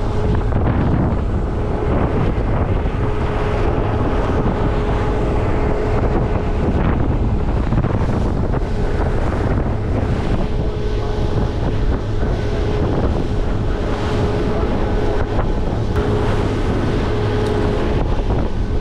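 Fishing boat running at speed on open water: a steady engine drone and rushing water under heavy wind buffeting on the microphone.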